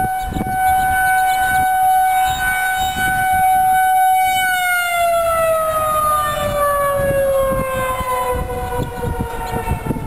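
Federal Signal 2001-SRNB electromechanical warning siren sounding a steady tone, then winding down, its pitch falling steadily from about four seconds in. Wind buffets the microphone underneath.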